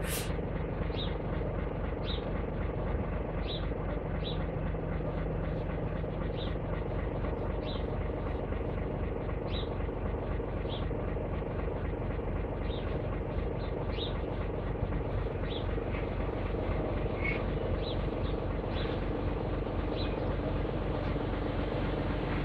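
Fadroma Ł-200 wheel loader's diesel engine idling steadily.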